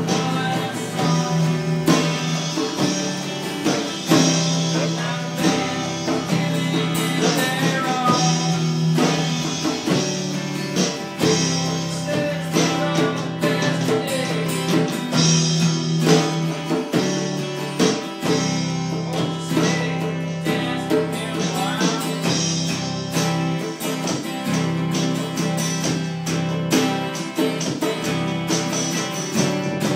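Background music: a guitar-led song with singing.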